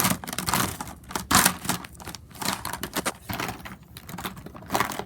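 Plastic markers and pens clattering as someone rummages through them for one that works: a run of irregular clicks and rattles, loudest about a second and a half in.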